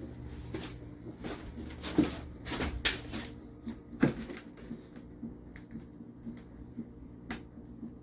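Irregular clicks and knocks, like small hard objects being handled, with the loudest knocks about two and four seconds in, over a faint steady hum.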